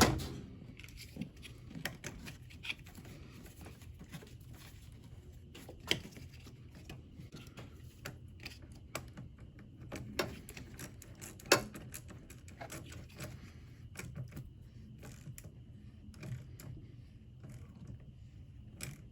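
Scattered small metallic clicks and taps of hand tools as the positive cable clamp is fitted onto a car battery post and its nut tightened with a 10 mm socket, with a few sharper single clicks along the way.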